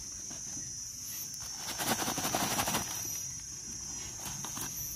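Steady high-pitched drone of insects, with a stretch of rustling, handling noise about two seconds in.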